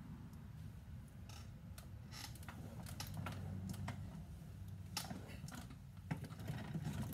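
Irregular light clicks and taps, a dozen or so scattered through, over a steady low hum.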